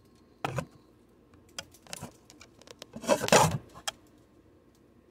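Iridescent cellophane gift wrap crinkling and rustling in short bursts as it is bunched up by hand, with scattered clicks. The loudest crinkle comes about three seconds in.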